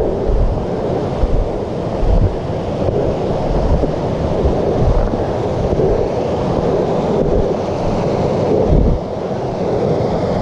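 Steady rushing of a mountain creek running beside the trail, mixed with wind buffeting the camera microphone in irregular low gusts.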